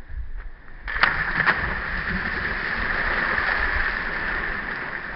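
Water splashing hard as people plunge into shallow sea water: a sudden burst about a second in with two sharp splashes in quick succession, then a steady rushing spray.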